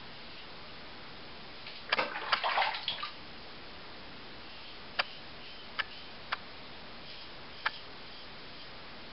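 A safety razor is swished in water to rinse off lather and stubble, a splashing of about a second, followed by four sharp clicks spread over the next few seconds.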